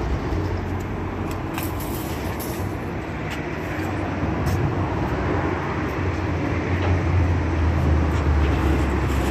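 Sheet-metal roll forming machine running: a steady low mechanical hum and rumble with a few light clicks.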